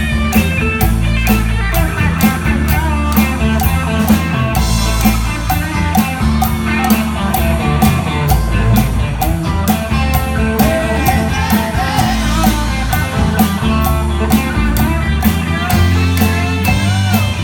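Rock music with guitar over a strong bass line and a steady beat of sharp percussion hits.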